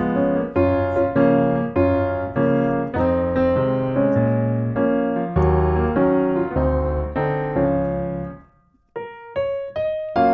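Background music: piano playing chords at a steady pulse of about two a second. It breaks off briefly near the end, then resumes with lighter, higher single notes.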